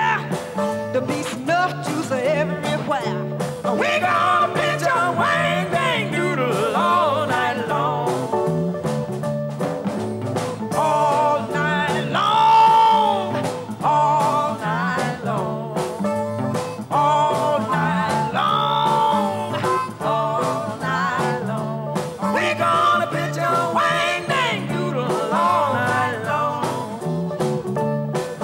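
A woman singing a Chicago blues live, in sung phrases with bending pitch, backed by an electric band of guitar, bass guitar and drums playing a steady beat.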